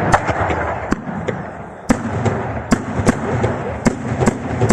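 Daytime aerial fireworks going off: a continuous crackling rumble with sharp bangs at irregular intervals, about two a second.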